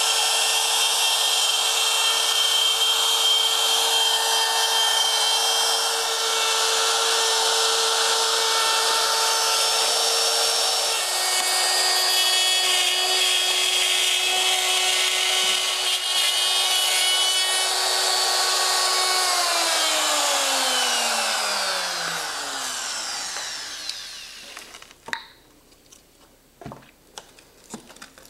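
DeWalt compact router with a straight-cut bit running and cutting through acrylic sheet with a whining, rasping ruckus. It is switched off about 19 seconds in and the motor spins down, its whine falling over several seconds. Light clicks and rattles follow as the cut acrylic is handled.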